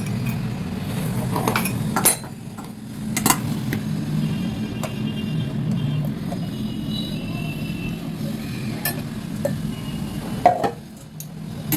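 Metal kitchen utensils clinking and knocking a few times as pots and a spoon are handled, over a steady low hum.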